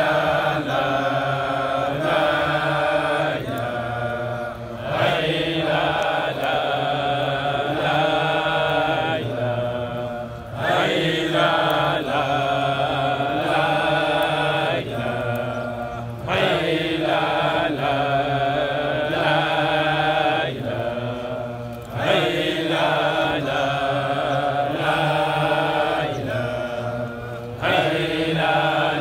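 A large group of men chanting a Sufi dhikr together in unison. The same long phrase comes round again about every five and a half seconds.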